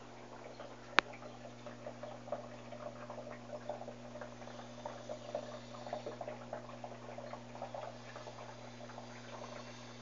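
Electrolux 13 kg washing machine running: water sounds with many small irregular crackles over a steady low hum, and one sharp click about a second in.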